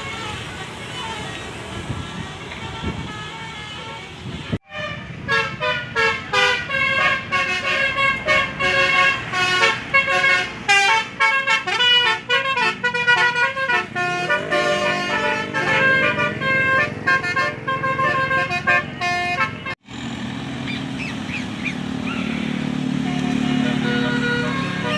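Basuri musical bus horn (telolet) playing a fast tune of short, stepped notes for about fifteen seconds, with traffic noise before it and a steadier low drone after it.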